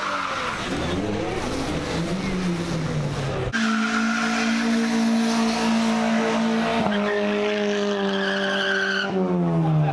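A car's engine revving hard with its tyres squealing as it spins donuts in tyre smoke. For the first few seconds the engine pitch swings up and down. About three and a half seconds in it jumps to a steady, high held rev, steps down slightly about seven seconds in, and falls away near the end.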